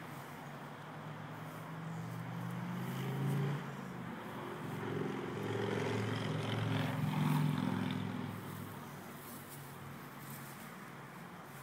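A passing motor vehicle's engine: a low hum that grows louder over several seconds, peaks about halfway through, then fades away.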